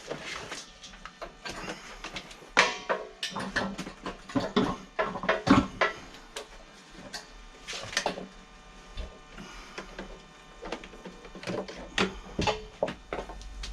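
Irregular knocks, clunks and scraping as an air compressor is shifted and pushed back into its felt-lined cabinet, busiest in the first half.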